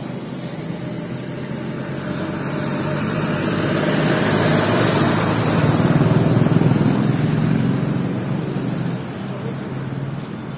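A motor vehicle's engine passing close by on the street, growing louder to a peak about halfway and then fading away.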